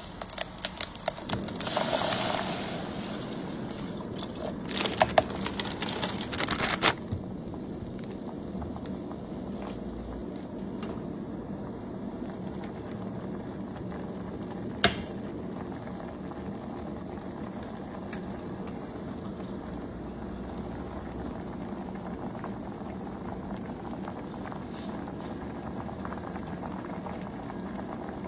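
A pot of instant noodles boiling with a steady bubbling hiss. For the first several seconds there are clicks and kitchen handling clatter, and there is one sharp click about fifteen seconds in.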